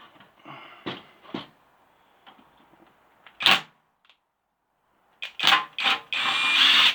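Sharp knocks and clatter of a consumer unit's parts being taken apart by hand, with one loud knock about three and a half seconds in. Near the end comes a quick run of clacks and a steady rattling noise lasting under a second.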